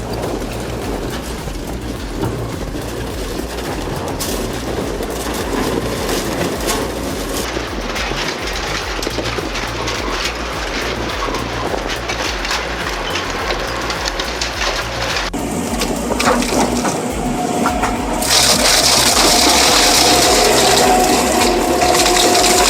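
A heavy shredding machine grinding and crushing material, continuous and loud. The sound changes abruptly about 15 seconds in and turns louder and harsher with a steady whine from about 18 seconds.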